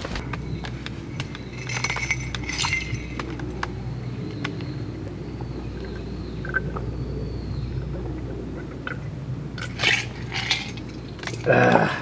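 Campfire crackling with small sharp pops, over a steady low hum. Later come a few louder clinks of a glass.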